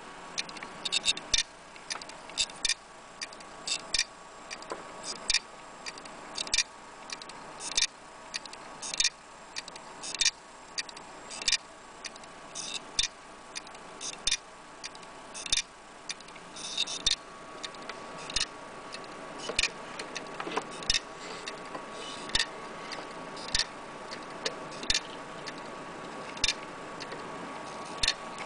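Failed laptop hard drive clicking over and over, a sharp click or a quick cluster of clicks about every second and a quarter, over a faint steady whine. This is the click of death: the drive cannot read and is not recognised.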